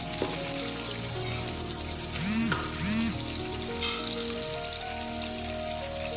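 Sliced onions sizzling steadily in hot oil in a pot as they fry toward golden brown, stirred with a wooden spatula. Background music plays underneath.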